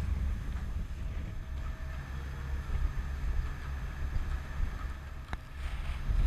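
Wind buffeting the microphone over the steady low rumble of a cargo ferry under way at sea. A single faint click about five seconds in.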